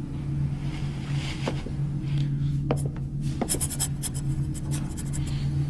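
Pen scratching on paper in short strokes, over a steady low hum.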